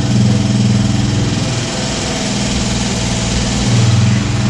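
Air-cooled pushrod motorcycle engine running cold, just started after a repair, with the throttle held open. It eases back a little in the middle and picks up again near the end.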